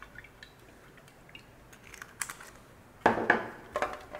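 A few faint light clicks, then about three seconds in a hand starts rubbing olive oil over the bottom of an aluminium baking pan: a louder scraping, rubbing sound with small knocks of the pan.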